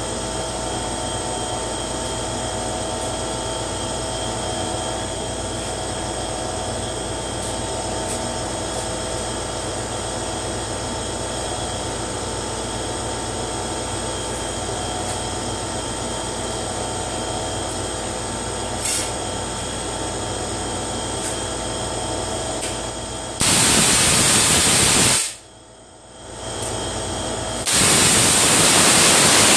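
Spark-gap Tesla coil: a steady electrical hum with a few held tones, then, about 23 seconds in, the coil fires with a loud buzzing crackle of arcs. It cuts out for a second or two, then fires again near the end.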